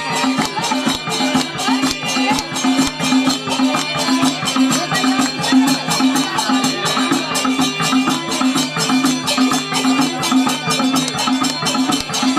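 Nepali folk dance music with a steady beat of about two beats a second and busy percussion over it.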